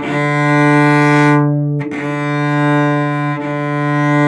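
Cello bowed at forte on one sustained low note, the bow changing direction about every one and a half seconds, so the note is re-attacked three times.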